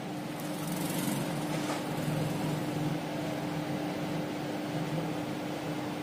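Steady machine hum, such as a fan or appliance running, with one constant low tone under an even hiss.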